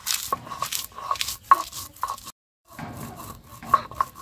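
Cylindrical stone roller rolled and pressed over fried dried red chilies on a flat shil grinding stone, crushing them into flakes: a run of irregular scraping, grinding strokes and knocks of stone on stone, with a brief silent gap about halfway.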